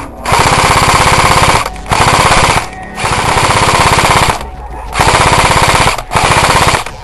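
Airsoft electric gun (AEG) firing full-auto in five rapid bursts of about one to one and a half seconds each, with short pauses between them.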